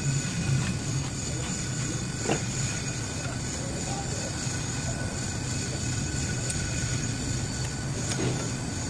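A steady low rumble of background machinery, with a light metallic click about two seconds in and another near the end as brake pads, their retaining pins and the spring clip are fitted into a four-piston brake caliper.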